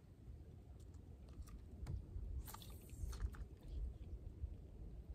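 Wind buffeting the microphone in an uneven low rumble, with a few light clicks and a brief hiss about two and a half seconds in.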